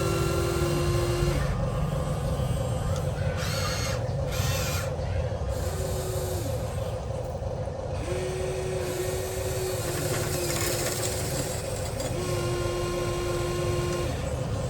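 Electric motors of a 1:14 scale Huina RC excavator whining in short stretches, a second or so at a time, as its functions are worked, over a steady low hum.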